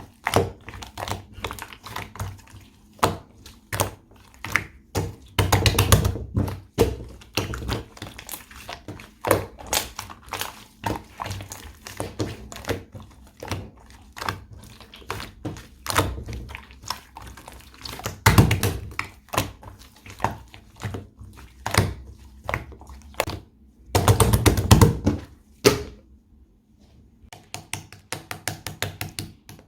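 Gray slime being pressed, poked and folded by hand, giving a quick string of sharp pops and clicks, with denser squishy bursts a few times.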